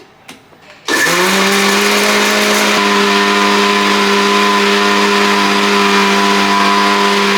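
Indian mixer grinder (mixie) switched on about a second in, its motor spinning up quickly and then running at a steady whine while it grinds fried pepper and garlic with a little water into a paste.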